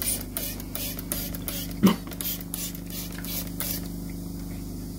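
Squeeze bottle squirting sodium metabisulfite solution into a glass beaker of gold-bearing acid solution, in a quick series of short hissing spurts, about three a second. The spurts stop about three-quarters of the way through, with one brief louder squeak about two seconds in. A steady low hum runs underneath.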